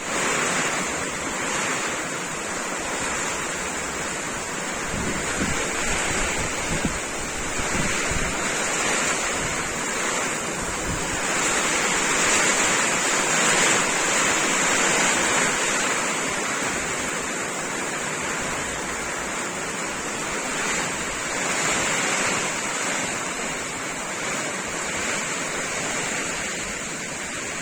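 Rain in a windstorm: a steady hiss of rain and wind that swells and eases, loudest around the middle, with wind buffeting the microphone in rumbling gusts several seconds in.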